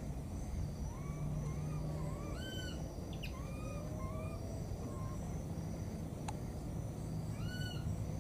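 Baby monkey crying for its mother with a series of short, squeaky coo calls, each rising then falling in pitch, the loudest about two and a half seconds in and again near the end. A steady high insect drone runs behind it.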